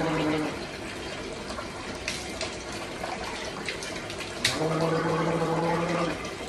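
A man gargling a mouthful of water with his head tipped back, as part of the ritual mouth-rinse of ghusl. The steady gurgling tone sounds briefly at the start and again for about a second and a half near the end. In between, water splashes as he takes a fresh mouthful from his cupped hands.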